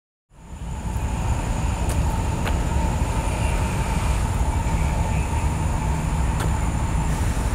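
Road traffic on a busy multi-lane road, a steady loud rumble of passing vehicles picked up by a handheld phone. It cuts in suddenly just after the start.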